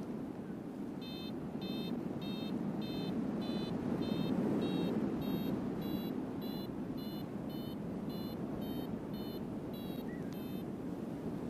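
Paragliding variometer beeping in a steady rhythm, a little under two short beeps a second, signalling that the glider is climbing in rising air; the higher the beep, the faster the climb. The beeps stop near the end, and a steady wind rush runs underneath.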